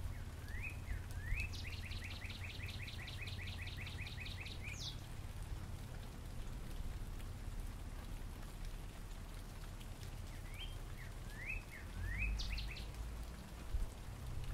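Northern cardinal singing: a couple of slurred upward whistles followed by a fast run of about fourteen repeated notes lasting some three seconds. A shorter phrase of upswept whistles comes again about ten seconds in, over a steady low background rumble.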